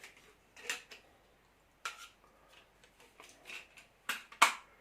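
Small metal tools clinking and clattering as they are handled, a handful of separate clicks with the loudest near the end.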